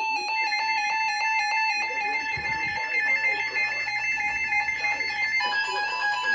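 Electronic alert tones: a rapidly pulsing beep, about five pulses a second, with a steady higher two-note tone joining it, all shifting to a different pitch about five seconds in.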